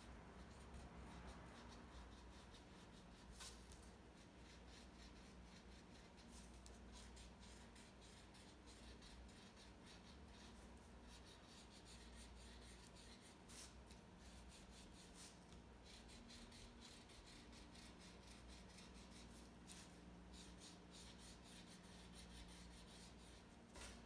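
Faint scratching and rubbing of a felt-tip marker colouring in a cardboard disc, with a few soft clicks.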